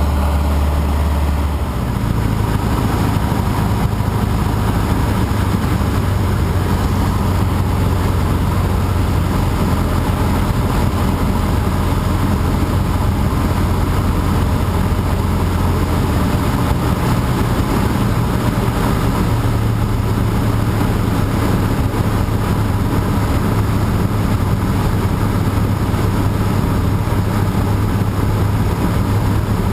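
Cessna 150J's four-cylinder Continental O-200 engine and propeller droning steadily in flight, with a slight shift in pitch about two seconds in.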